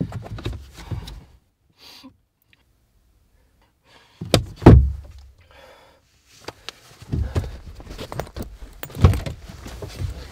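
Thumps and clunks inside a car: two heavy thuds a little past four seconds in, then shuffling knocks and a loud clunk near the end as the car door is opened.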